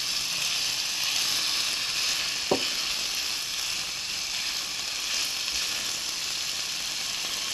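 Pieces of chicken sizzling steadily in olive oil in a frying pan over medium-high heat while being stirred with a silicone spatula. A single sharp knock about two and a half seconds in.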